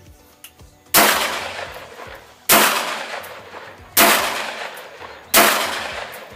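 Four shots from an Ekol Firat Compact traumatic pistol, about a second and a half apart, each sharp report trailing off in a long echo. Firing reloaded ammunition, the pistol cycles every round without a problem.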